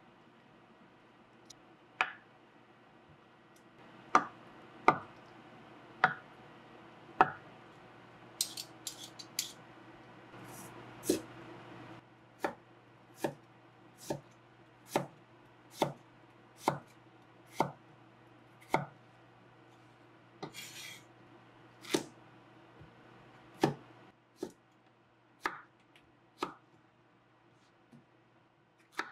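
Kitchen knife chopping on a wooden cutting board, dicing tofu and slicing Korean zucchini: separate sharp knocks of the blade on the board, about one a second, with a run of lighter quick taps about nine seconds in.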